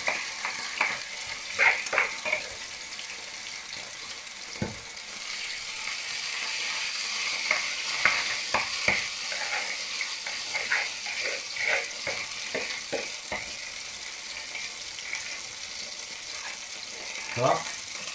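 Grated raw potato rösti frying in plenty of oil in a pan, a steady sizzle, with frequent short knocks and scrapes of handling over it.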